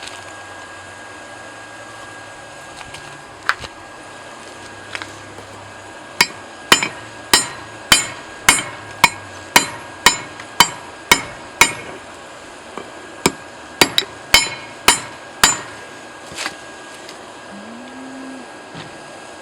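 Hand hammer striking steel: a steady run of about a dozen ringing metal-on-metal blows at about two a second, then a short pause and several more blows.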